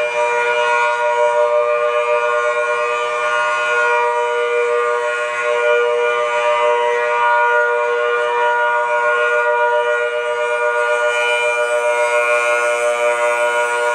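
Federal Signal Thunderbolt 1000T outdoor warning siren sounding at full pitch: a chord of several steady tones held level, with only slight swells in loudness.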